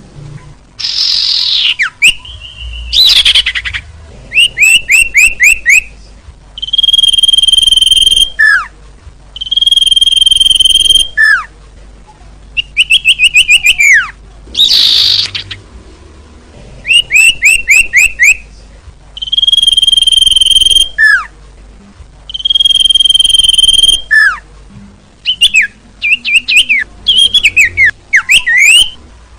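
Bird lure call (suara pikat) for sirtu and cipo birds, played loud in repeated phrases. The phrases alternate between quick runs of falling chirps, long steady whistled notes about a second and a half long, and single sharp downward whistles, with short pauses between them.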